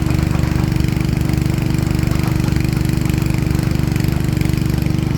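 Heavy diesel engine of an excavator or dump truck running at a steady speed, a low, even throb with no revving.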